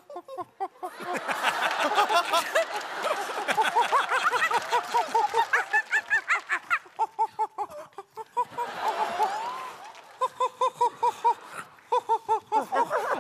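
People imitating monkeys: rapid, rhythmic "ooh-ooh" hoots and shrill screeching calls. A dense spell of screeching over audience laughter fills the first half, and the quick hoots return near the end.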